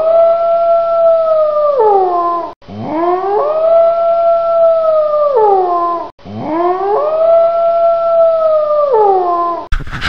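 A wolf howl, sounded three times in a row as identical calls: each rises, holds one long steady note, then slides down, about three seconds apiece.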